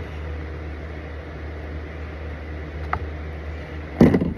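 Handling noises from hand work on a chainsaw's chain-tension adjustment, the saw not running: a light click about three seconds in and a louder clunk near the end, over a steady low hum.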